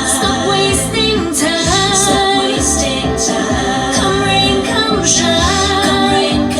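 Pop song: a woman singing a melody over a full band backing with a steady beat.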